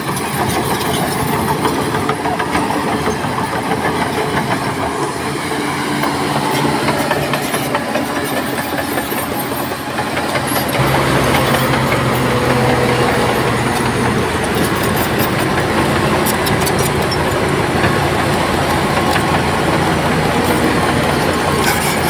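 Heavy diesel earthmoving machinery running steadily; about eleven seconds in the engine sound gets louder and deeper.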